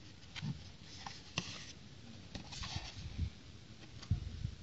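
A cardboard box being handled and turned over in the hands, with scattered light taps and brief scuffs of fingers and cardboard.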